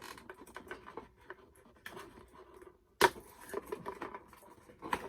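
Plastic packaging crinkling and rustling as small doll accessories are handled, with a sharp snap about three seconds in and another near the end.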